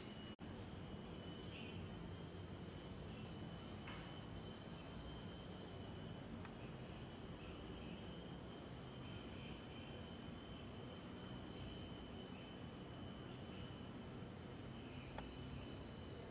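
Faint insects calling: a steady thin high whine with two higher buzzing calls of about two seconds each, one about four seconds in and one near the end.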